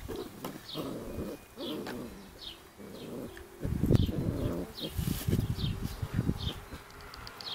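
Sheepadoodle puppies growling and grunting as they wrestle, in rough bouts that are loudest in the middle of the stretch. Behind them a small bird gives a short, high chirp over and over, about once a second.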